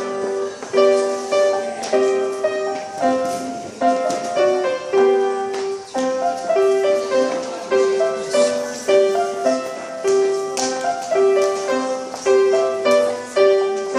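Piano played by a six-year-old at a recital: a simple piece in the middle register, played in short, evenly paced phrases of repeated notes.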